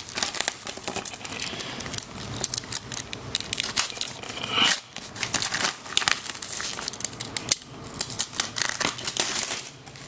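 A parcel box being opened by hand: packaging crinkling and rustling with bursts of tearing, one louder burst about halfway through.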